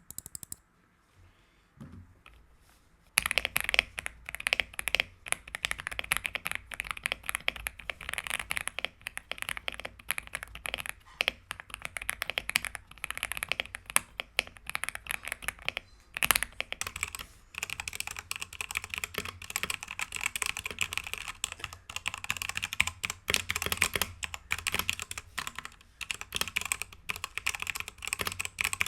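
Fast typing on mechanical keyboards with linear switches (an Aula F75 with LEOBOG Ice Vein switches and a Redragon K617 with Outemu Red switches), starting about three seconds in as a dense run of key clicks. About halfway through, the keystrokes turn brighter and denser.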